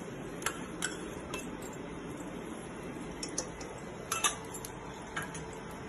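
A steel spoon clinking against a steel bowl and the pressure cooker as desi ghee is spooned into the cooker: a few light, scattered clinks, the loudest about four seconds in.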